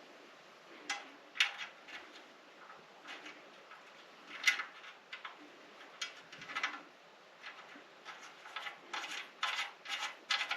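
Small metal clicks and ticks from bolts, washers and nuts being fitted by hand to a metal TV stand bracket. The clicks are scattered at first and come thicker and faster near the end.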